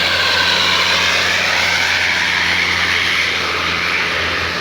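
Tour bus's diesel engine working hard up a steep climb, a loud steady low drone with a high whine above it.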